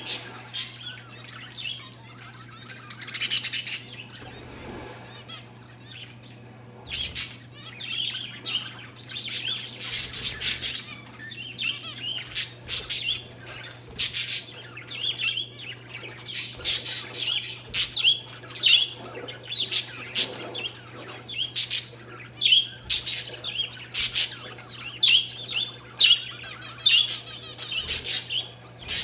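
Parakeets and zebra finches chirping: many short, high chirps and calls, several a second, over a steady low hum.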